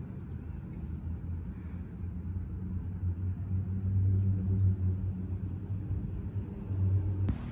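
A low engine rumble with a steady pitch, swelling toward the middle and easing off again, and a single sharp click near the end.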